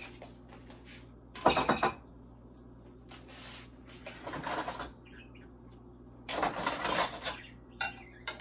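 Kitchen utensils and dishes handled on a counter: a spoon in a ceramic mug and a knife on a plate, clinking and clattering in four short bursts, about a second and a half in, around four and a half seconds, the longest about a second before the end, and a brief one near the end.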